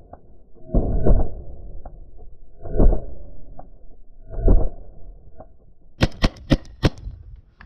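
Paintball marker firing, heard as muffled thumps every couple of seconds. Near the end comes a quick run of about five sharp clicks.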